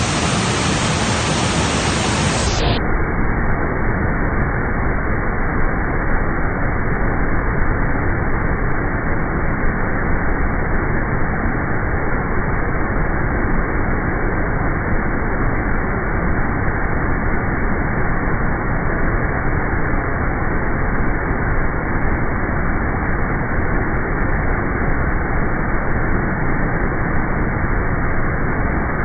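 Steady loud rushing of a waterfall's falling water, a constant noise that turns duller about three seconds in.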